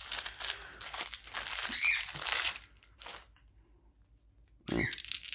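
Thin plastic bag crinkling and tearing as it is pulled open, in dense crackles that stop about two and a half seconds in.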